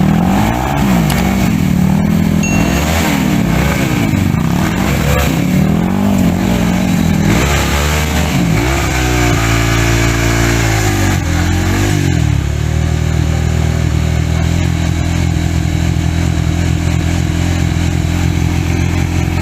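Dirt bike engine revving hard, its pitch climbing and dropping again and again, then running at a steadier pitch for the second half.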